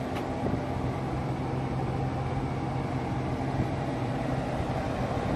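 Steady mechanical drone of a running motor or engine, holding one pitch with a low hum.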